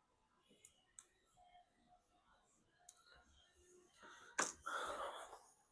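Faint small clicks of tools and parts as a smartphone is reassembled, then a sharper click about four seconds in followed by a short rush of noise.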